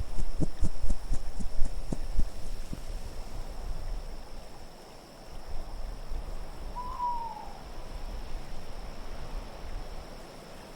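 Low, steady wind with a run of dull thumps over the first two or three seconds, then a single owl hoot about seven seconds in, falling slightly in pitch.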